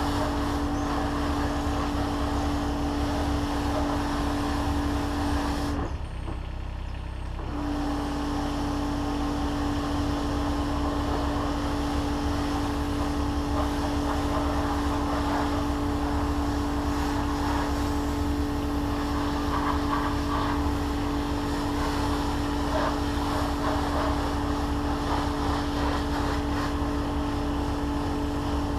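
Machinery running steadily, a constant hum with a low rumble. It breaks off briefly about six seconds in and resumes a second and a half later.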